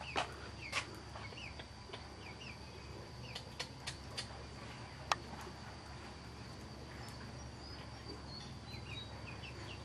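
Open wood fire of thin sticks burning under a kettle, giving several sharp crackles and pops, the loudest about five seconds in. Small birds chirp faintly in the background.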